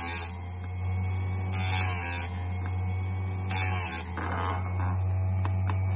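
Electric chainsaw-chain sharpener running with a steady motor hum, its grinding disc grinding a cutter tooth twice, about two seconds apart.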